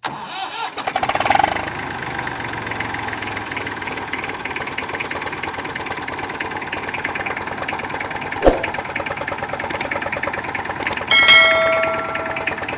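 A vehicle engine starts and settles into a steady, evenly pulsing idle. A sharp click comes about eight and a half seconds in, and a short steady tone sounds near the end.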